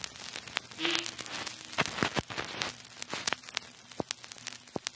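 Crackling sound effect: irregular sharp crackles and pops over a steady hiss, with a faint low hum beneath.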